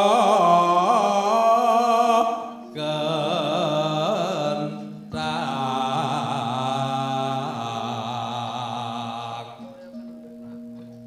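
Javanese solo singing in three long phrases with a wavering, ornamented pitch, over soft sustained gamelan tones. The voice stops about a second and a half before the end, leaving the gamelan ringing on its own.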